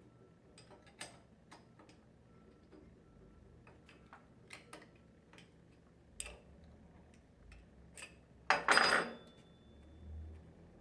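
Light metallic clicks and taps of a wrench and cap screws being worked off the head of an internal gear pump and set down on a wooden bench. A louder metal clatter comes about nine seconds in.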